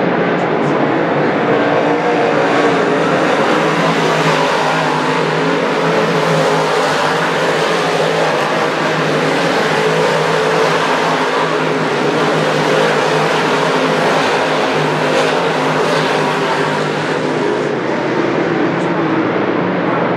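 358 small-block V8 dirt modified race cars racing around a dirt oval. Their engines blend into a steady, loud, unbroken drone.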